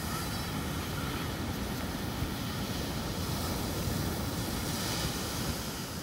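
Ocean surf breaking and washing up the sand in a steady hiss, with wind rumbling on the microphone.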